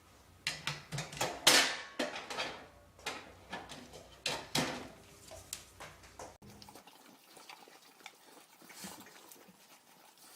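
A run of irregular sharp clicks and clattering knocks, like hard objects or dishes being knocked about, which goes quieter about six seconds in.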